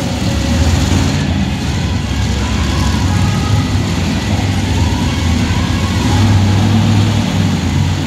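Monster truck engine running steadily at low revs, a loud low rumble that swells slightly about three-quarters of the way through.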